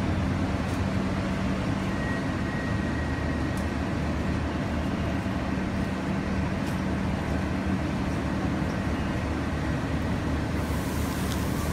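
New Flyer Xcelsior XDE40 diesel-electric hybrid bus idling at a stop, a steady low engine hum. A high hiss joins near the end.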